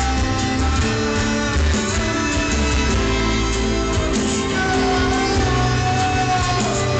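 Live band playing an instrumental passage: guitar over a steady bass, with a sustained melody line moving above it and no words sung.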